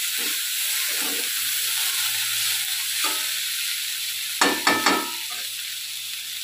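Ivy gourd greens and potatoes sizzling in oil in a kadai while a metal spatula stirs and scrapes through them. About four and a half seconds in, the spatula knocks against the pan three times in quick succession.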